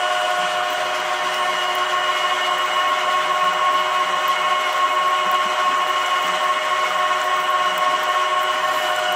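Homemade screw oil press running steadily while pressing sunflower seeds: an even mechanical whine with several steady high tones.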